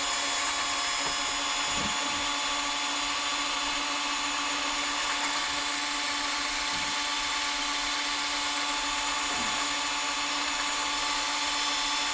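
Drill running steadily at low speed, spinning a three-stone cylinder hone inside a 1940 Packard front brake wheel cylinder to clean up the bore: a constant hum with the grind of the stones against the cast-iron bore.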